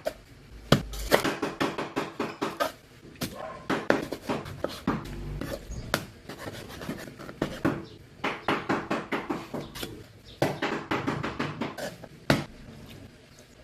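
Kitchen utensils knocking and clattering, in quick runs of several sharp strikes a second with pauses between.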